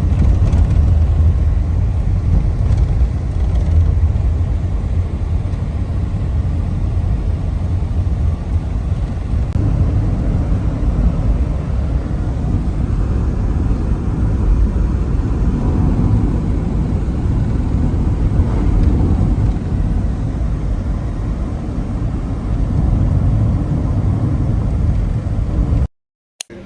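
Loud, steady low rumble of wind and road noise from a moving car.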